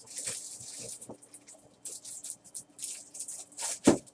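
Handling noises: a run of short rustles and scrapes, then a sharper knock just before the end.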